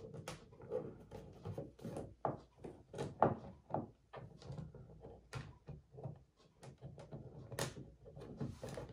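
Hard plastic plate being pushed and shifted against a plastic kayak hull as it is fitted over its opening: a series of irregular light knocks and clicks, the sharpest about 7.5 seconds in.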